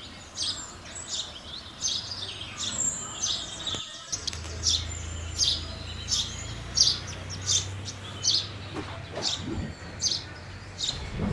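House sparrows chirping, a steady run of short chirps about twice a second, over a low background hum that comes in about four seconds in.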